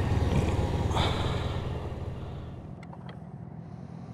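Motorcycle engine running at low speed, dying away about two and a half seconds in, followed by a few faint clicks.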